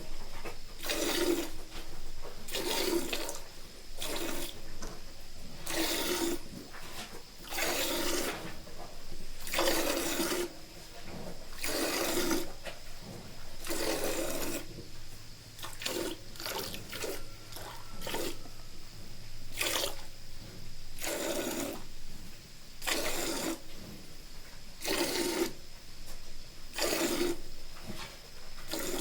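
Milk squirting into a pail as a cow is milked by hand, in regular squirts roughly one a second, each with a ringing hiss.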